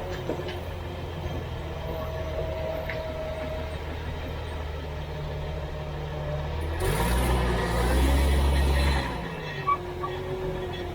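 Jeep XJ Cherokee driving: steady drivetrain hum and road noise, swelling into a louder rush with a deep rumble from about seven seconds in for roughly two seconds, then settling back. A couple of small knocks follow near the end.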